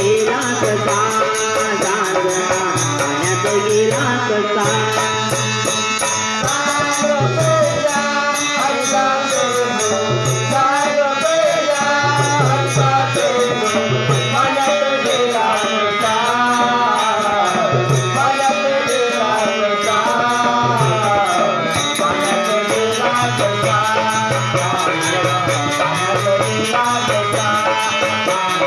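Live Marathi devotional folk song (bhajan): a wavering, ornamented melody over a low drum pulse and a steady, fast percussion beat.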